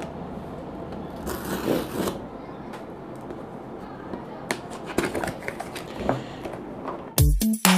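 Packaging being handled: a rustle about a second and a half in as the plastic seal strip comes off a camera's cardboard box, then light scrapes and clicks as the box is worked open. Near the end a beat of background music starts.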